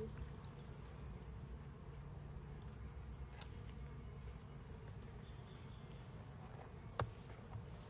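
Honey bees buzzing steadily around an open hive, with one sharp knock near the end.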